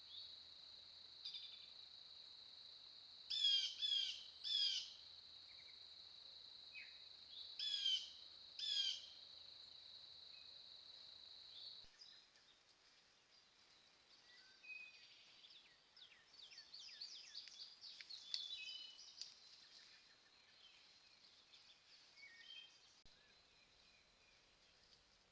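Woodland birds calling, recorded by a trail camera's microphone. Over a steady high drone there are five loud sweeping calls in two groups, three then two. About halfway through the drone stops and fainter, busier chirping birdsong takes over.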